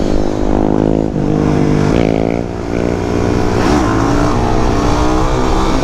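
Suzuki DR-Z400 single-cylinder engine under way, its pitch rising and dropping several times as the bike accelerates and changes gear, with wind rumble on the microphone.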